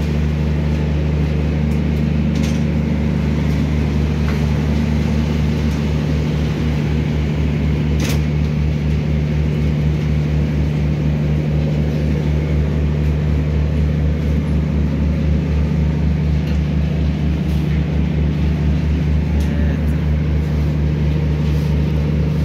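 Heavy machinery of an asphalt batching plant running: a loud, steady low hum with a fast, even throb underneath. A single sharp click about eight seconds in.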